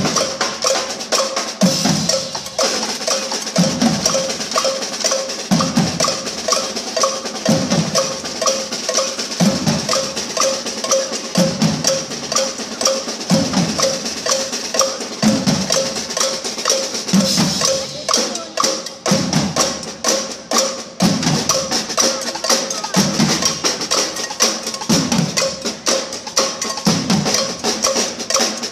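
An ensemble of drummers playing drums and cymbals together in a fast, driving rhythm, with a deep drum hit about every two seconds.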